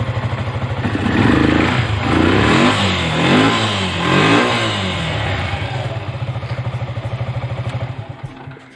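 Yamaha FZ-S single-cylinder motorcycle engine idling, then revved up and down about four times from about a second in before settling back to idle. It is freshly started on a newly fitted battery. The engine sound dies away near the end.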